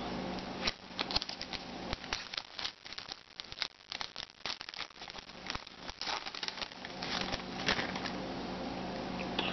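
Foil wrapper of a 2012 Upper Deck SP Authentic football card pack being torn open and crinkled by hand: a run of irregular sharp crackles that dies away near the end as the cards come out.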